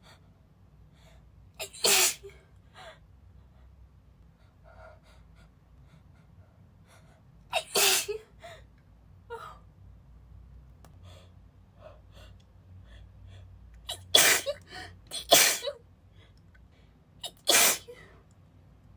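A woman sneezing five times in a fit of breathy, spraying sneezes while sick. Several sneezes come after a quick catch of breath. The first two are spaced apart and the last three come closer together in the second half.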